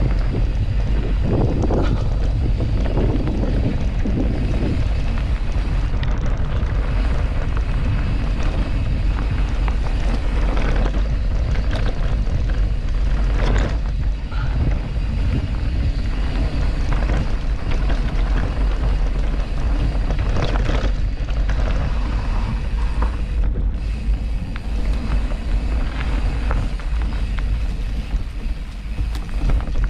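Wind buffeting the microphone and the rumble of a mountain bike riding over forest trail, with a few short knocks partway through.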